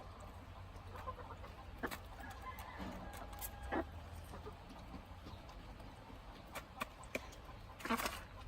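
Chickens clucking in short, scattered calls over a low steady hum.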